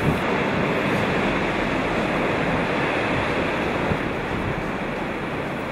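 Storm waves surging and breaking against a sea wall and sending spray over it: a steady, loud rush of surf, with wind buffeting the microphone.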